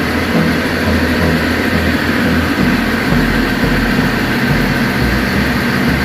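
Tugboat's diesel engine running steadily in the engine room, a loud constant drone with a heavy low rumble.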